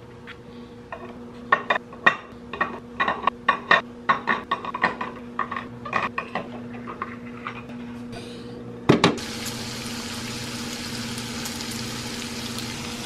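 Eggs being set one by one into a ceramic egg tray, each clicking against the ceramic and the other eggs. About nine seconds in comes a single knock, then bacon sizzling steadily in a frying pan, over a faint low hum.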